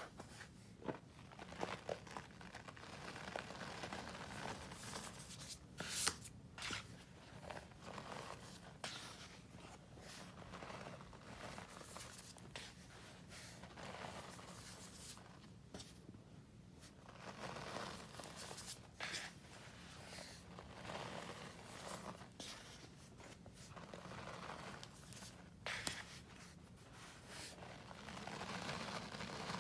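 Powdered scouring cleanser (Ajax and Comet) being squeezed and crumbled by hand in a plastic tub: soft, irregular crunching and crumbling with a few sharp crackles. Near the end, clumps and loose powder fall back into the tub with a steadier hiss.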